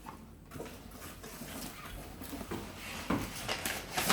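Cardboard and paper packaging being rustled and handled, with a few soft knocks as the box is opened and its contents moved about.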